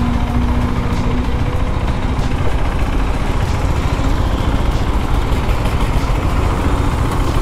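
Single-cylinder motorcycle engine running steadily under a heavy low rumble, heard from the rider's seat.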